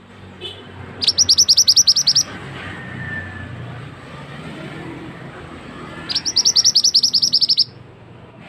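Male flowerpecker (mandi darah / mantenan) song as used for a bird lure: two loud, fast trills of high, sharp, down-slurred notes, each lasting about a second, about five seconds apart. A steady low rumble runs underneath.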